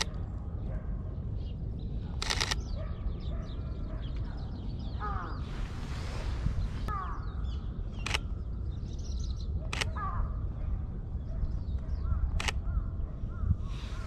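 Crows cawing, short downward-sliding calls in small groups every few seconds, over a steady low rumble. The Sony A7III's shutter clicks a short burst about two seconds in, then single frames near 8, 10 and 12 seconds.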